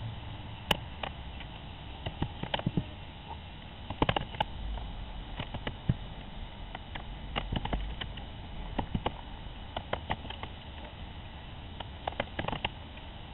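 Raccoon clambering on plastic nest boxes and PVC perch rails, its paws and claws making irregular clicks and taps in small clusters, over a steady hiss.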